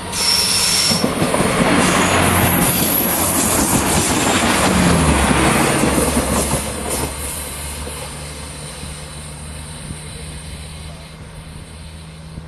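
NordWestBahn diesel multiple unit passing close by: a loud rush of engine and wheel noise with rail clatter and a brief high wheel squeal near the start, fading away after about seven seconds while a steady low engine hum carries on.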